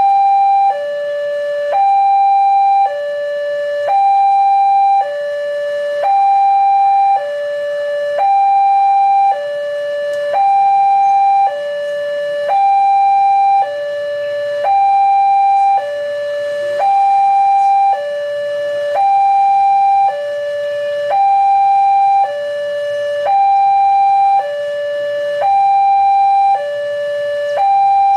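Railway level crossing warning alarm sounding from the crossing's loudspeaker post, alternating a higher and a lower electronic tone, about a second each, in a steady repeating cycle. It means the barrier is down for an approaching train.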